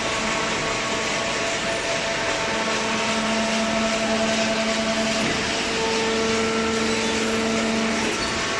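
Hydraulic carton baler running: a steady mechanical hum from its pump and motor, with whining tones that strengthen and shift every few seconds as the load changes.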